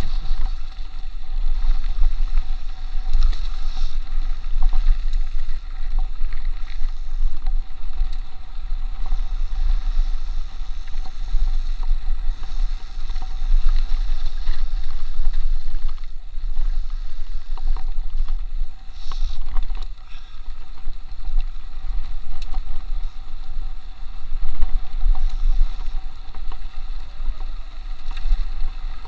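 Heavy wind buffeting on the microphone and tyres rolling over a dirt trail as a mountain bike descends at speed, with a few brief knocks and rattles from the bike over bumps.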